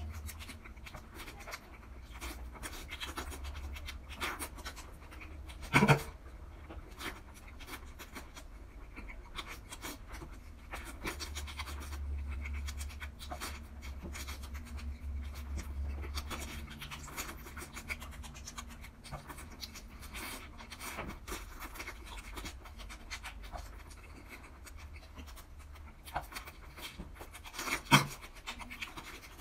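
Close-miked eating sounds: chewing and slurping of fish balls in soup, with scattered small clicks and two louder sharp sounds, about six seconds in and near the end.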